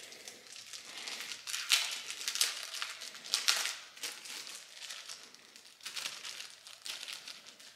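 Parts packaging crinkling and rustling in the hands as a new camshaft seal is unwrapped from its wrapper and plastic bag, in irregular bursts of crackle.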